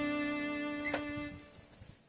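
Background music ending: a held, stringed-sounding note fades away over the first second and a half, with a small click about a second in.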